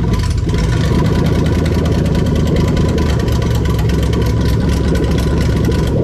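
Toyota 1UZ-FE V8 idling unsilenced with no exhaust fitted, running rough and lumpy like a lumpy cam. The VVT-i oil control valve on bank one is forced on, throwing that bank's cams to full advance; the lumpiness shows the valve and cam phasing are working.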